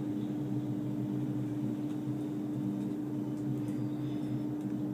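A steady low hum: one constant tone with weaker steady tones beneath it. A few faint light clicks sound now and then.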